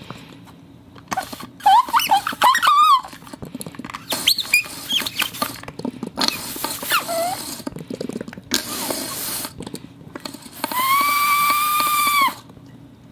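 Homemade squeak and whistle sound effects made with household materials. A run of short squeaky chirps slides up and down in pitch, like a small animal's calls, then comes a burst of hiss, and near the end one steady whistling tone is held for about a second and a half.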